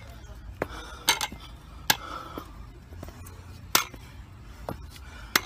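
A wooden walking stick and shoes tapping on a concrete driveway as someone walks slowly: about eight sharp, irregular clacks over five seconds.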